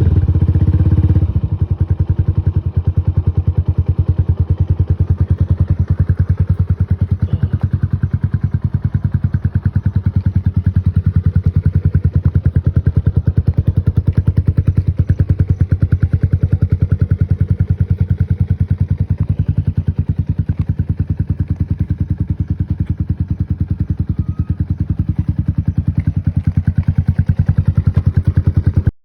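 Motorcycle engine through an aftermarket Akrapovic-style exhaust, revved for about a second at the start, then idling steadily with a fast, even exhaust beat.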